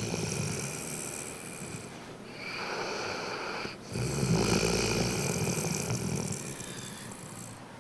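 A Rhodesian Ridgeback dog snoring in her sleep. Each slow snoring breath lasts a few seconds, and the loudest begins about four seconds in.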